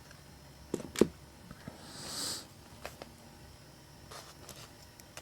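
Light clicks and knocks of hard plastic action figures being handled, with a sharper double knock about a second in and a brief soft rustle about two seconds in.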